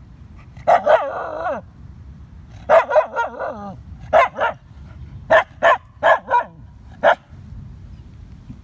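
Shiba Inu barking at a snapping turtle: a few barks drawn out into wavering yelps, then a run of seven short, sharp barks about half a second apart.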